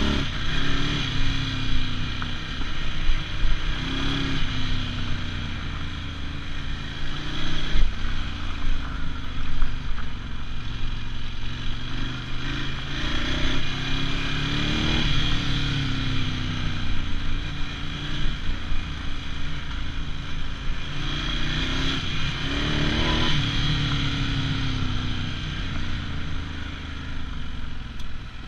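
Ducati Scrambler 1100's air-cooled L-twin engine, heard on board while riding, rising and falling in pitch again and again as the throttle is opened and closed through the gears. A steady hiss of wind and tyres on gravel runs underneath.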